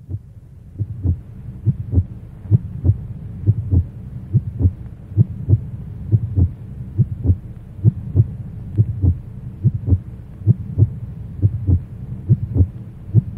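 Heartbeat sound effect: slow paired low thumps repeating about once a second over a steady low hum.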